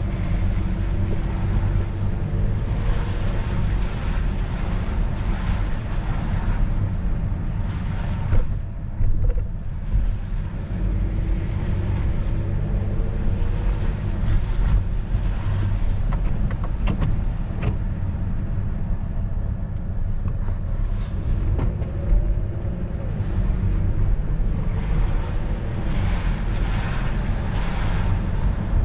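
A car driving on wet pavement, heard from inside the cabin: a steady low rumble from the engine and road, with the engine note rising three times as the car speeds up, and a few light knocks.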